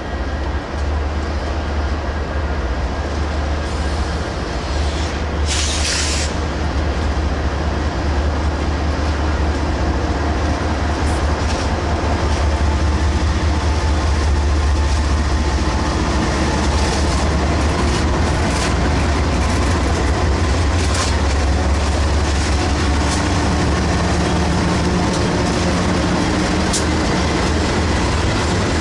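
Four BNSF diesel locomotives leading an intermodal freight train approach and pass close by. Their engines give a deep, steady drone that grows louder as they near, over the noise of wheels on the rails.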